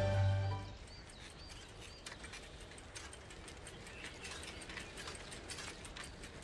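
Background music fades out within the first second. Then a bicycle rolls along a forest path with dense, irregular crunching clicks and ticks, and birds chirp.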